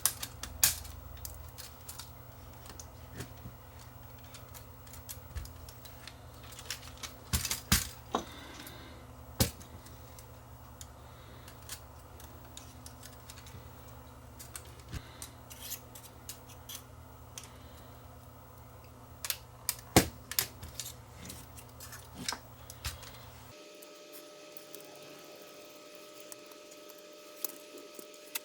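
Scattered small clicks and taps of a tiny screwdriver and small metal and plastic parts while a Sony Hi8 camcorder's tape-mechanism chassis is unscrewed and taken out. A low steady hum runs underneath and cuts off abruptly near the end.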